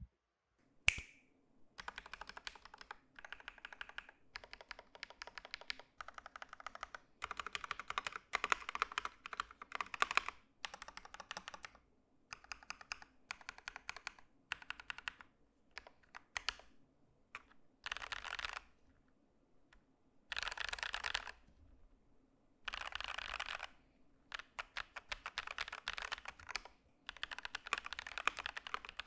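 Keystrokes on a Keychron V1 mechanical keyboard with lubed KTT Red Wine linear switches and Cherry-profile ABS doubleshot keycaps. First the modifier and stabilised keys are pressed, whose lubed stabilisers the owner still finds rattly and uneven. About seventeen seconds in, quick random mashing of the letter keys begins, and near the end ordinary typing.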